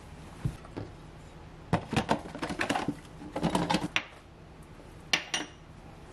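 A small ceramic soap dish clattering as it is handled on a kitchen counter: a quick run of knocks and clinks, then one sharp clink about five seconds in as it is set down on the ledge.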